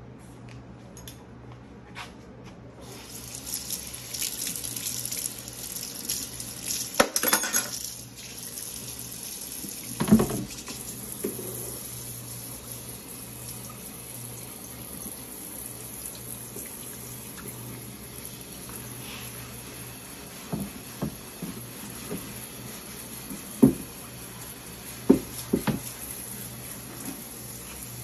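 Kitchen sink faucet running water while utensils and dishes are rinsed, the flow starting about three seconds in. Dishes and utensils knock and clink against the sink now and then.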